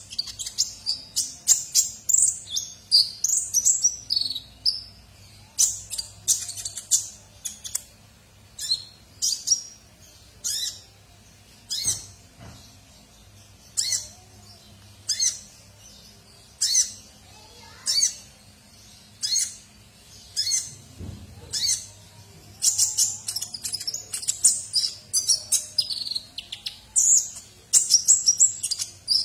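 Caged male Van Hasselt's sunbird (kolibri ninja) singing vigorously. A rapid, high-pitched twittering song at the start and again through the last seven seconds, with single sharp chirps about once a second in between.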